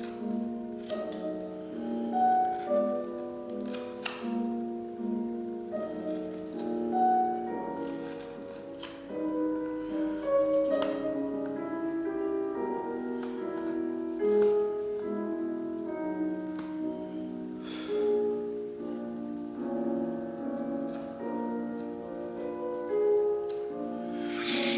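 Instrumental background music: a melody of single notes over chords.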